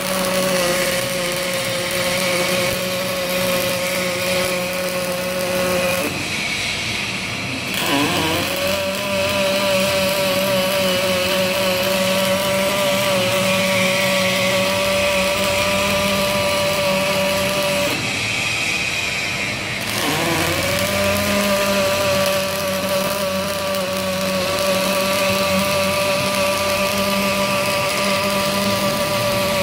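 Robotic wire-fed MIG welding arc running in long stretches: a steady, even buzzing tone with a hiss over it, breaking off twice for a couple of seconds, about six and eighteen seconds in, before the arc strikes again.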